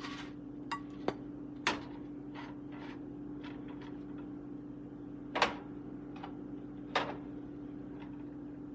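Kitchen clatter: a handful of sharp knocks and clicks from items being handled, the loudest about five seconds in, over a steady hum.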